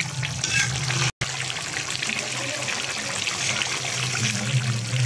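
Thick liver gravy simmering and bubbling in an aluminium pan while a metal ladle stirs through it, with a steady hiss underneath. The sound cuts out for an instant about a second in.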